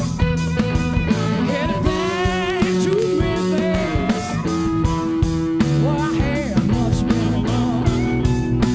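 Blues band playing live in an instrumental stretch: electric guitar, bass and drum kit keep a steady beat while a lead line bends up and down in pitch.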